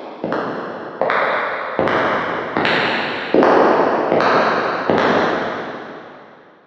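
Footsteps at a steady walking pace, about one step every 0.8 s, each with a long echoing tail. The steps grow louder, and after the last one about five seconds in, the echo dies away.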